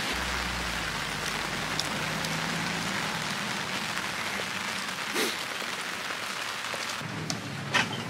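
Rain falling steadily, an even hiss, with a few sharp taps near the end.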